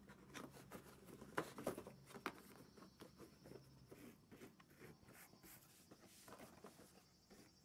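Faint rustling and light clicks of a person handling things close by, with a few sharper taps between about one and a half and two and a half seconds in.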